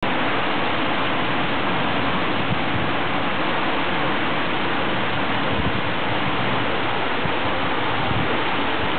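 Torrential cloudburst rain pouring down in a steady, even hiss.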